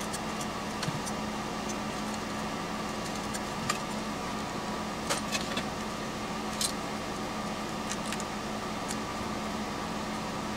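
Steady machine hum and hiss, like a room fan or air conditioner running, with a few light clicks and ticks as hands handle wires and small metal parts on a workbench.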